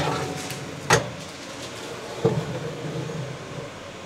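Two handling knocks: a sharp knock about a second in and a duller thump a little after two seconds, over a faint steady low hum.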